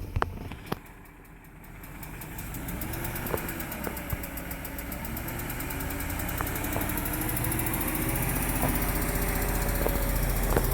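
BMW M62 4.4-litre V8 of a 2003 Range Rover idling with a fast, even ticking, the engine tick the owner is chasing and tags as a hydraulic tappet (lifter) noise. It gets steadily louder from about two seconds in, with a few separate sharp clicks.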